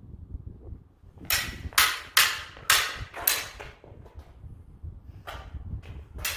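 Steel sabre blades (light HEMA sabres) clashing in a sparring exchange: a quick run of about five sharp clashes between one and three and a half seconds in, then a few more near the end, each ringing briefly.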